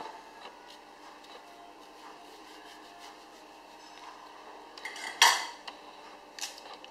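Small kitchen knife scraping and clicking faintly as it cuts into a crisp wax apple. Just after five seconds in comes one sharp, loud clack as the knife is set down on a hard surface, then a smaller click.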